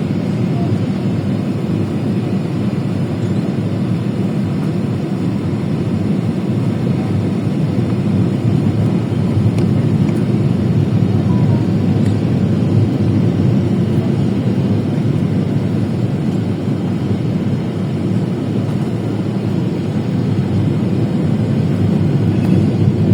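Airliner cabin noise: a steady, loud rumble of jet engines and rushing air heard from inside the passenger cabin.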